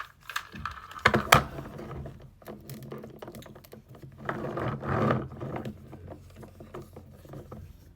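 Hard plastic toy parts being handled: a figure and toy quad bike clicking and clattering in the hands, with irregular light ticks and a couple of louder rattling, rubbing stretches.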